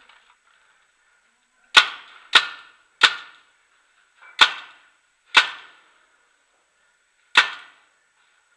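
Paintball marker firing six single shots at uneven intervals, each a sharp pop followed by a short echo.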